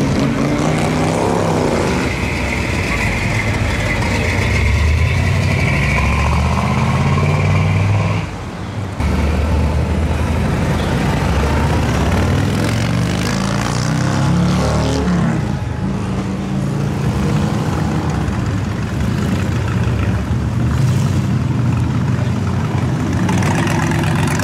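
Classic and hot-rod cars driving slowly past one after another, their engines running with a deep, loud exhaust note. The engine pitch rises and falls as the cars pull through, and about 8 seconds in the sound drops briefly before the next car comes in.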